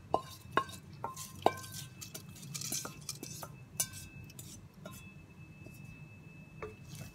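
A metal spoon striking and scraping against a metal pot, with several sharp, ringing clinks in the first two seconds and lighter taps and scraping after, as the fried cashews are tipped in and stirred into the pongal.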